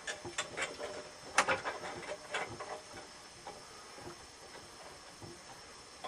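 Small metal clicks and light rattles of a lawn-engine carburetor and its throttle linkage being handled and worked free, the loudest click about one and a half seconds in, with fewer clicks after about three seconds.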